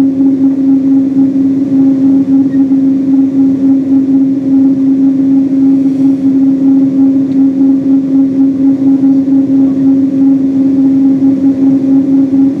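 Steady droning hum inside the cabin of a Boeing 777-200 parked at the gate, with one strong low tone and fainter overtones above it that hold even throughout.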